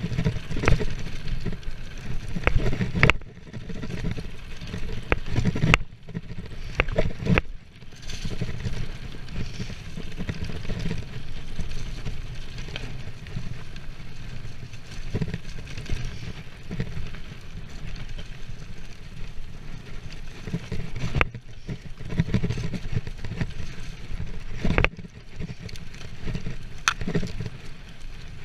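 Mountain bike descending a dirt forest trail at speed: tyres rolling over the trail with wind rumbling on the microphone, and frequent sharp clicks and knocks as the bike rattles over bumps.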